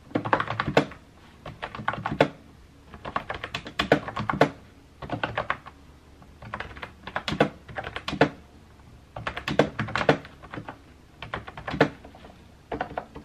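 Typing on a keyboard with round, typewriter-style keycaps: quick runs of key clicks, each about a second long, broken by short pauses between words.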